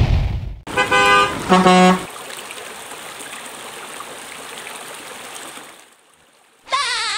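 A loud rushing noise at the start, then two short horn toots about a second in, followed by the steady rush of a shallow stream running over rocks. Near the end a wavering tone starts and slides down in pitch.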